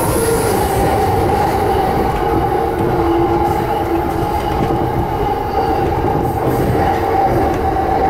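JR Yamanote Line E235-series electric commuter train running along curving track, heard from inside at the front: a steady rolling rumble with a held whining tone over it.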